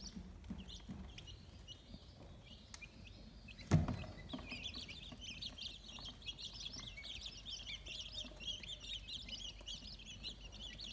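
Newly hatched quail chicks cheeping: many thin, high peeps overlapping, growing busier after a single thump about four seconds in.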